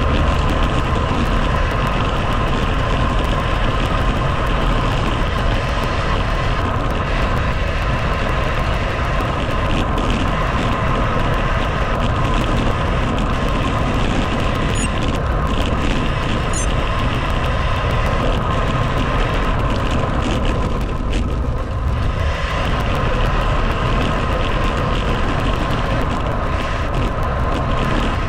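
Steady rush of wind and road noise on the microphone of a riding bicycle, with a low rumble throughout.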